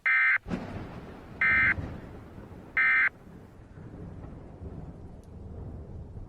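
Emergency Alert System end-of-message data signal: three short, identical digital bursts about a second and a half apart, marking the close of the warning message. A low, steady rushing noise runs underneath.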